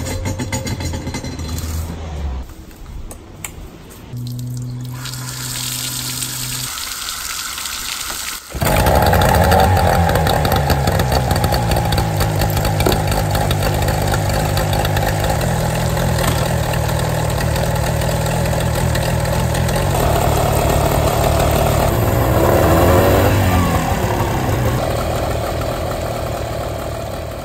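Small two-stroke outboard motor, running again after being submerged, turning over on a garden-hose flush. From about eight seconds in it runs loud and steady, after a few seconds of quieter, mixed sounds. Its revs rise and fall briefly about two-thirds of the way through.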